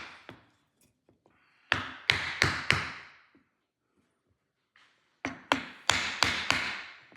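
Hammer blows on a wooden block, driving a steel ABS reluctor ring evenly around onto a drive shaft's CV joint. Two quick runs of sharp knocks: four strikes, a pause of about two seconds, then about six more.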